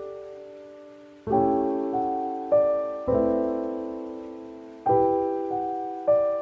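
Slow, gentle background piano music: soft chords and single notes struck every second or two, each left to ring and fade.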